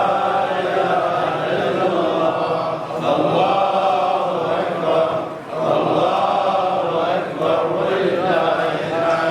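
A man's voice chanting in a melodic recitation, in the style of Quran recitation, with long held notes broken by short pauses about three and five and a half seconds in.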